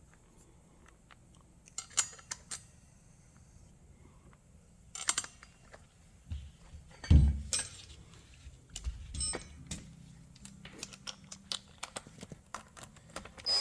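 Scattered metallic clicks and clinks as small titanium brake-rotor bolts are handled and started by hand into the disc, with a dull thump about seven seconds in.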